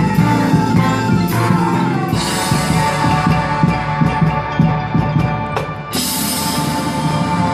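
Marching band playing its show music: sustained chords over drums and percussion, with a bright crash about six seconds in.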